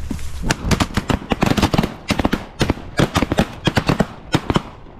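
A rapid volley of shotgun blasts from several hunters firing at passing geese, many shots overlapping, until it stops about four and a half seconds in.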